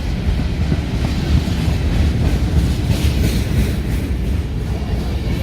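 Empty freight train of grain hopper cars rolling past on a mountain grade, with a steady low rumble and wheel clatter on the rails.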